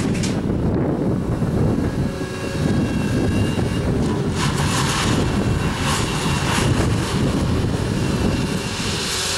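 Volvo crawler excavator's diesel engine working hard as the bucket digs into a pile of railway ballast, with stones rattling and scraping several times about halfway through.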